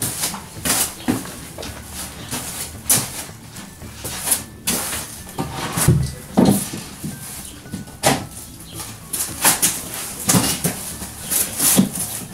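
Irregular knocks, taps and scrapes of wooden floorboards being handled and laid over insulation board on a hut floor.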